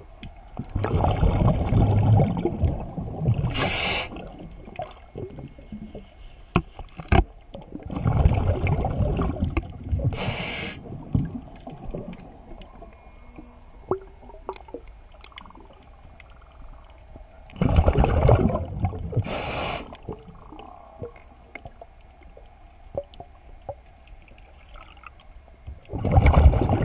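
A diver breathing through an underwater regulator, four times, about every eight seconds. Each breath is a rumble of exhaled bubbles a few seconds long, with a short hiss near its end.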